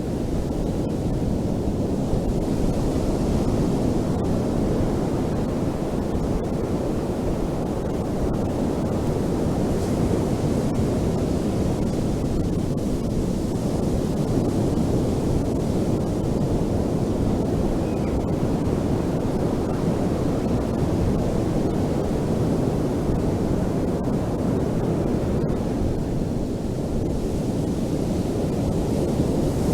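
Ocean surf breaking and washing on a beach, a steady deep rumble of water that swells slightly now and then.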